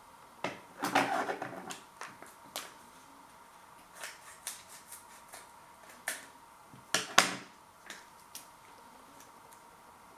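Food packaging being handled: crinkling and rustling with scattered clicks and taps, loudest about a second in and again around seven seconds in.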